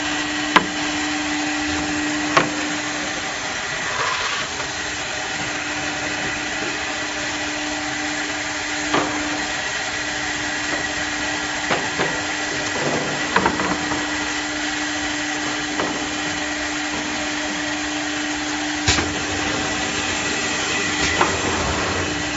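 Side-drilling CNC router running: a steady motor hum and hiss, with short sharp clicks and knocks every few seconds.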